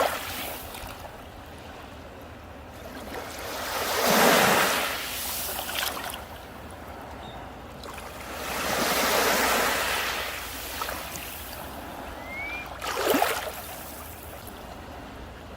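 Sea surf breaking on a beach: a steady wash with three surges as waves come in, the loudest about four seconds in, a broader one around nine seconds and a sharper one near the end.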